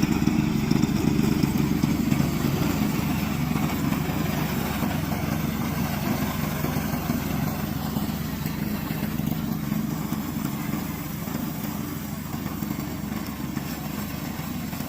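Petrol engine of a remote-controlled tracked lawn mower running steadily, the sound slowly getting quieter over the stretch.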